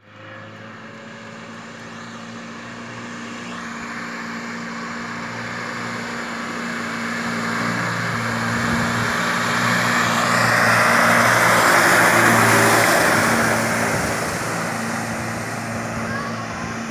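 A 4x4 jeep driving through a shallow river, its engine running steadily while its tyres splash through the water. The splashing builds as it approaches, is loudest as it passes close about ten to thirteen seconds in, and fades as it drives away.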